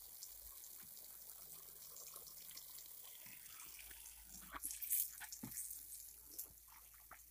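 Water from a garden hose spraying and splashing onto wet wooden planks while a basin of freshly caught fish is rinsed. It makes a steady running-water hiss, with a few louder splashes and knocks about four and a half to five seconds in.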